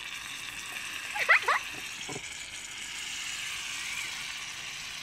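Two nearly empty cans of shaving foam spraying at once: a steady hiss with wet spluttering as the last of the foam comes out. A few short, louder spurts come about a second and a half in.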